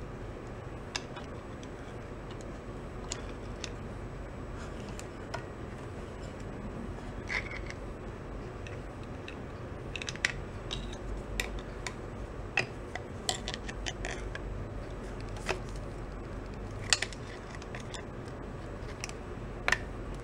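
Small metal clicks and taps from a valve spring compressor and a valve spring and retainer on an antique Briggs & Stratton engine, as the spring is compressed to free the valve's little retaining pin. The clicks come sparsely at first and more often in the second half, over a steady low hum.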